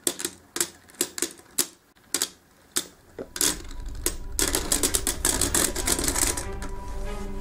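Two plastic Beyblade spinning tops, Dragoon GT and Trypio, clashing in a plastic stadium: sharp clacks at irregular intervals, a few a second, then a fast rattling flurry of hits about four and a half seconds in that lasts about two seconds.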